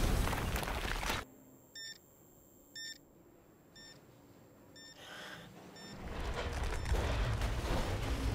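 A loud rumble of falling rock and debris cuts off suddenly about a second in. It leaves near quiet broken by short electronic warning beeps about once a second, the first two louder and the rest fainter. A low rumbling noise builds back up from about six seconds in.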